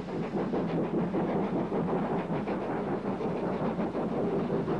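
Steam locomotives working hard up a steep bank, with banking engines pushing at the rear: a quick, steady run of exhaust beats.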